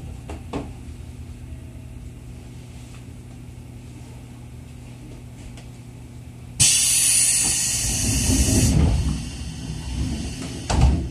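Passenger doors of a 211 series electric train closing: about six and a half seconds in, a loud hiss of air that lasts about two seconds as the doors slide shut with a low rumble. A short thump follows near the end, over the steady hum of the stationary car.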